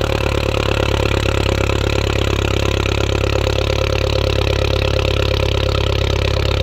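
2013 Mini Cooper S's 1.6-litre turbocharged four-cylinder idling steadily, heard right at the twin centre exhaust tips.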